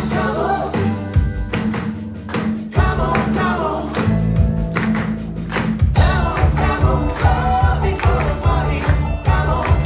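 Live band playing a song, with a lead voice singing over a steady bass beat.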